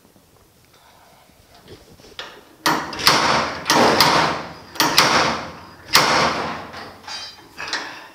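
Slide hammer weight slamming repeatedly against its stop, sharp metallic clanks about once a second starting a few seconds in, sometimes two close together. It is pulling a bent-in mirror mount on a steel truck cab back out with the inner brace bolted to it.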